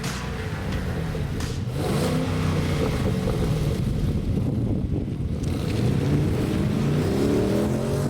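Holden VFII Commodore's 6.2-litre LS3 V8 through its stock factory exhaust, with the revs rising and falling several times and climbing again near the end.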